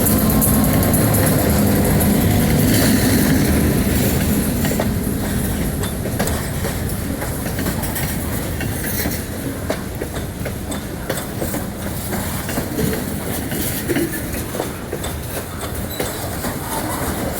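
Freight train rolling past, its wheels clicking steadily over the rail joints. A low rumble is louder over the first few seconds and then eases off, leaving mostly the clatter of the cars.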